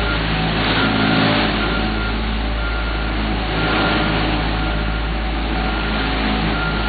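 Heavy asphalt paving machinery running: a steady, deep diesel engine rumble with a constant hum.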